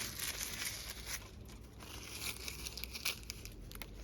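Irregular rustling and crinkling, with scattered sharp crackles, the loudest about three seconds in.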